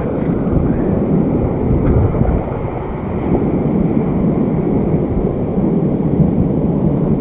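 Steady wind buffeting the microphone, a loud low rumble, mixed with surf washing on the shore.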